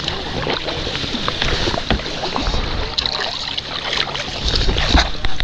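Water sloshing and splashing around a sea kayak under paddle, with wind rumbling on the microphone and scattered sharp splashes or knocks.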